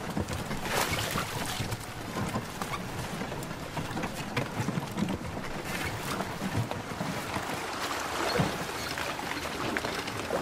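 Wooden handcarts creaking and rattling as they are pushed over wet stone paving, with scattered footsteps and small knocks throughout.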